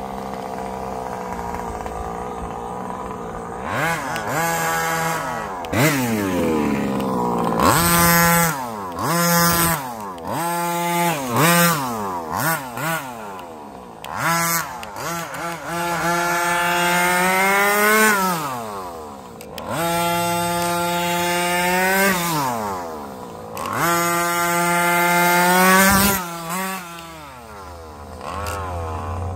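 30cc two-stroke engine of an HPI Baja 5T RC truck, idling at first and then revving up and dropping back about six times as the truck accelerates and slows, with one long rising rev near the middle.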